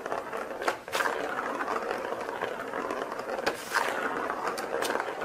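A ball rolling around the plastic track of a round cat scratcher toy, with a few sharp clicks as a cat bats at it.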